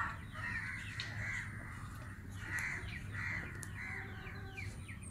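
Harsh crow-like cawing calls, about six at irregular intervals, with short high chirps of small birds between them.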